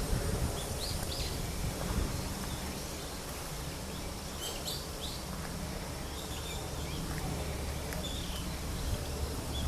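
Wild birds giving a few short, high chirps scattered through, over a steady low rumble.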